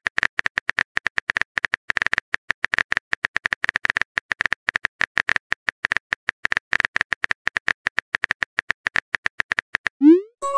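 Texting-app keyboard typing sound effect: rapid, uneven key clicks, several a second, then a short rising swoop near the end.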